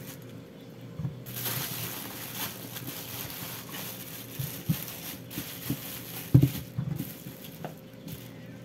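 Tomatillos and serrano chiles being handled in an enamel colander and set down one at a time: scattered soft knocks of fruit against the dish, the loudest a little past six seconds in.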